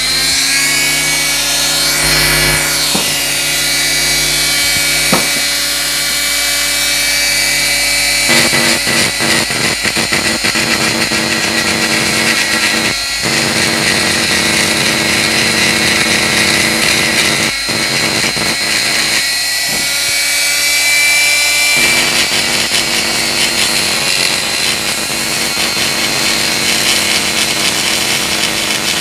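Pen-type die grinder (a 'tuner') coming up to speed with a rising whine and then running steadily high-pitched, its bit grinding inside a motorcycle cylinder head's combustion chamber to smooth away the rough cast 'orange-peel' surface. The grinding turns rougher about eight seconds in, with a few brief breaks as the bit leaves the metal.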